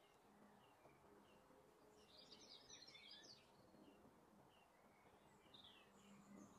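Near silence: faint bird chirps recurring, with a brief burst of twittering about two seconds in.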